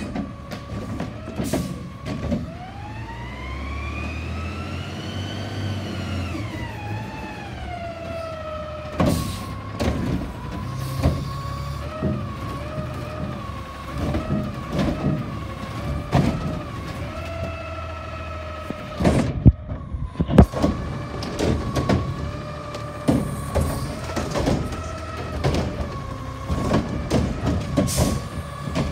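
Front-loader garbage truck with a Curotto-Can automated carry can: the diesel engine revs up and falls back as it pulls up, then a steady hydraulic whine runs under repeated clanks and bangs as the arm grabs and empties a trash cart, with the loudest bangs about two-thirds of the way through.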